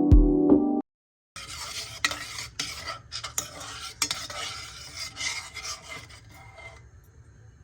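Background music ends just under a second in; then a metal spoon stirs and scrapes in a dish, with small clinks, for about five seconds before fading out.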